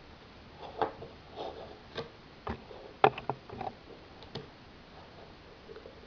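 Plastic Lego bricks of a small puzzle box clicking and scraping as fingers press and slide its parts: a string of irregular sharp clicks and soft rubs, the loudest about three seconds in.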